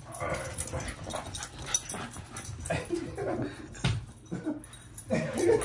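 A dog whimpering and whining in a few short, wavering cries spread across the moment.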